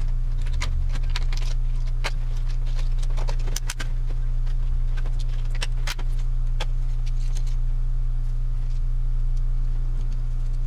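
Clicks and light rattles of a boombox's circuit board, wires and plastic case being handled and fitted back together, over a steady low electrical hum. The clicking is busy for about seven seconds, then thins out.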